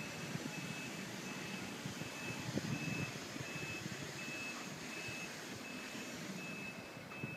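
A vehicle reversing alarm beeps steadily, about one and a half high beeps a second, over a low, steady rumble of engine noise.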